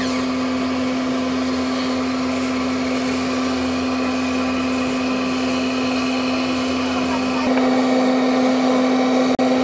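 Steady electric motor whine from a radio-controlled tipper truck, one held tone, with faint voices underneath. About 7.5 s in the sound shifts, and it cuts out for an instant just before the end.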